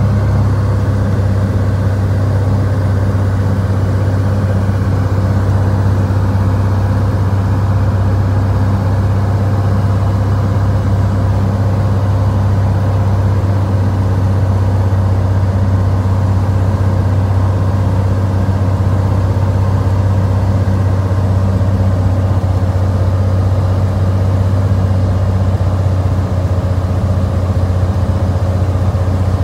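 Aircraft engine droning steadily at a constant pitch, heard from inside the cockpit as the aircraft descends on final approach to land.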